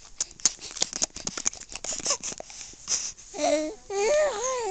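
Baby babbling: a run of short clicks and breathy noises, then about three seconds in, high, wavering coos that rise and fall in pitch.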